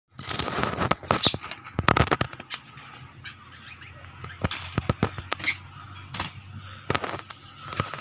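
Small songbirds fighting inside a wire cage: wings flapping and bodies knocking against the cage wire in rapid, irregular clattering bursts, with a few short calls. The busiest, loudest scuffle comes in the first two seconds or so, with further bursts about halfway through and near the end.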